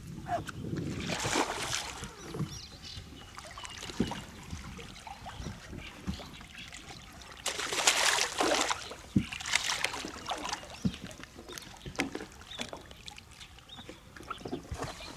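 Hooked skygazer (topmouth culter) thrashing at the water surface while being played in on a line, in several bursts of splashing, the loudest about eight seconds in.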